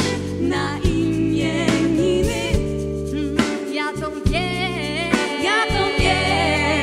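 Female vocalist singing a pop song live into a handheld microphone, backed by a band with piano, bass guitar and drums.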